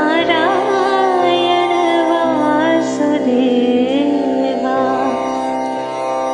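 Devotional song: a woman singing a slow, ornamented melody over a steady drone accompaniment.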